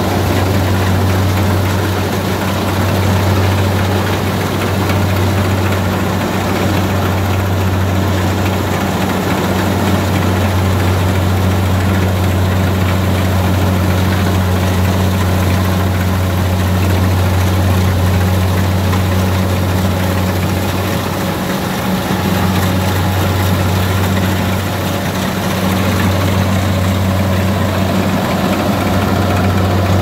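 Kubota DC-60 combine harvester's diesel engine running steadily while the machine cuts and threshes lodged rice, a constant low hum under an even mechanical rush.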